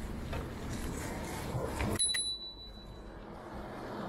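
A bicycle bell rung once about halfway through: a single bright ding that rings out for about a second. It comes over the low rumble of the bike rolling along.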